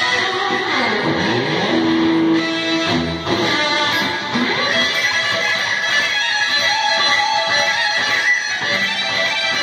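Electric guitar played solo in fast lead runs, with notes gliding down and back up about a second in and a briefly held note around two seconds in.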